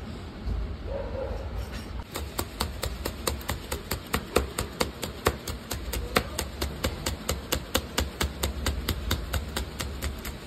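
Chef's knife slicing green chillies on a bamboo cutting board: quick, even chops of the blade on the wood, about five a second, starting about two seconds in.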